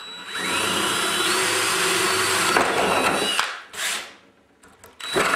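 Electric drill with a 7/16-inch wood bit boring through a wooden screen frame. The motor whine climbs as it spins up and runs for about three seconds before stopping, gives a short burst, then starts again near the end.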